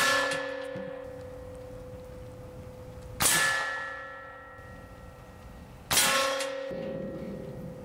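Three shots from an AEA Element MAX .457 big-bore PCP air rifle, each heard as a sharp clang as the slug strikes the thin 1/8-inch steel backing plate behind the paper target. The plate rings on in a steady, slowly fading tone after each hit. The strikes come about three seconds apart.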